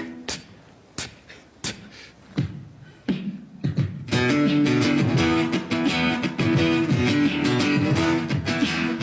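A rock jam starting up: for about four seconds only sparse, separate drum hits, then guitar and drums come in together playing a riff in E.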